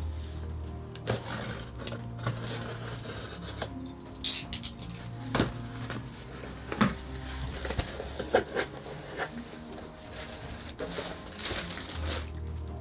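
Scattered light clinks and knocks of small objects being handled, over soft background music.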